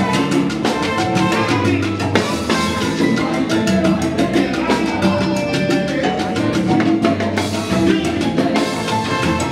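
Live Cuban salsa band playing a steady up-tempo groove, with congas, timbales, bass and piano driving a dense, continuous rhythm.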